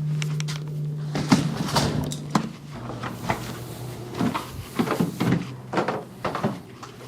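Clicks and knocks of a portable typewriter case being handled, with its nylon webbing strap and buckle, over a steady low hum that drops slightly in pitch about three seconds in.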